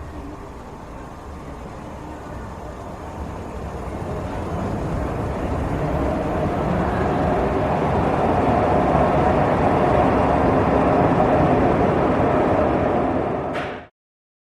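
Metro train running, its noise growing steadily louder over about ten seconds, with a steady whining tone coming in about halfway. The sound cuts off abruptly near the end.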